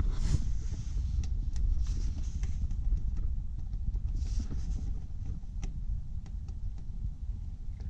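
Ratchet and extension loosening a truck's oil filter counterclockwise: scattered sharp metallic clicks and brief scraping, irregular rather than a fast ratchet rhythm, over a steady low rumble.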